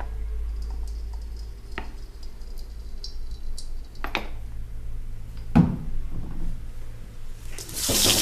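Utensil knocks and clinks against a kadai over a low steady hum. Near the end a loud sizzle starts suddenly as thuthuvalai leaves go into hot coconut oil to be sautéed.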